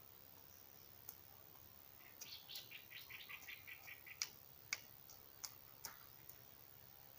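A bird's rapid chattering call, a run of short high notes lasting about two seconds, followed by a few sharp clicks, against a quiet background.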